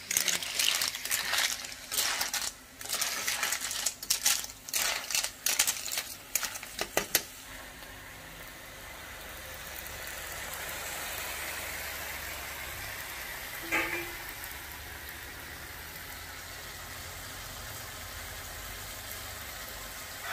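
Snails in their shells being stirred in an iron frying pan with a spatula, the shells clattering and clinking against each other and the pan, for about the first seven seconds. After that the stirring stops and the pan gives a steady sizzle.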